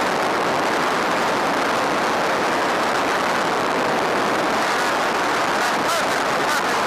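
Steady rush of wind and engine noise inside the cabin of a Cessna A150K Aerobat in flight with its side window open.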